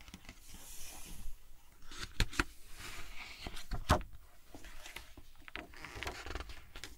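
Pages of a picture book being handled and turned: paper rustling with a few sharp taps, the loudest about two and four seconds in.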